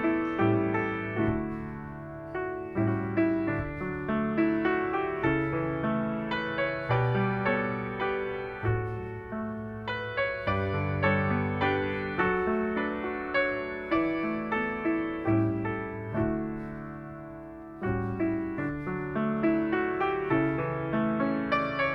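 Solo piano playing a slow, gentle piece, each note struck and left to ring; the playing thins out and fades about 16 seconds in, then picks up again a couple of seconds later.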